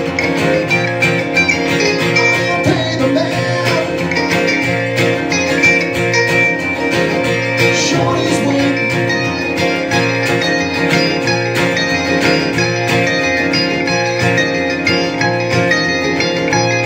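A live acoustic country-folk band playing: a strummed acoustic guitar and a second, smaller plucked string instrument, with a woman singing.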